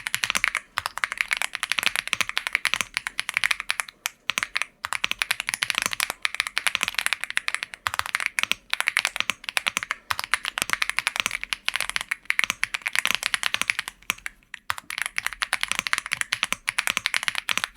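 Fast, continuous typing on a computer keyboard, a dense run of key clicks with brief pauses now and then, picked up by a Fifine Ampligame A8 microphone as a typing sound test.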